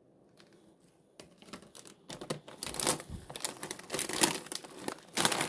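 Plastic grocery packaging crinkling and rustling as items are handled, starting about a second in and getting louder from about two seconds in.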